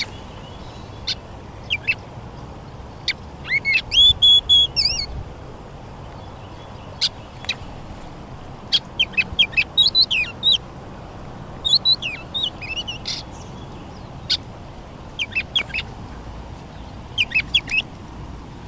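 Small birds chirping in short runs of quick high notes every second or two, over a steady faint background hiss.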